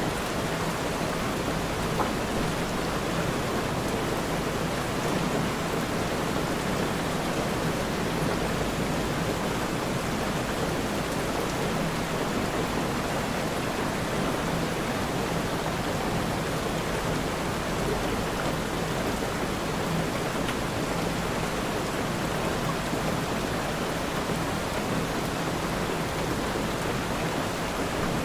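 Steady rain falling, an even hiss with no thunder or gusts, and one small tap about two seconds in.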